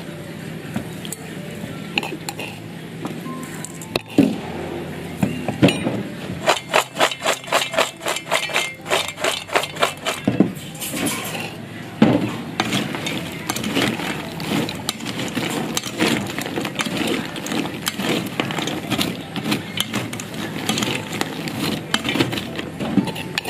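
Crisp fried macaroni rattling and clinking in a stainless steel pot as it is stirred and tossed with a metal spoon and a dried shrimp and chili mixture. There is a fast run of clicks about a quarter of the way in, then a steady clatter.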